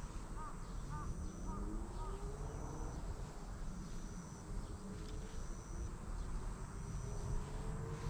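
Outdoor ambience: an insect trilling in short, high, evenly spaced pulses about once a second, and a bird calling a quick series of short notes that stops about a second and a half in.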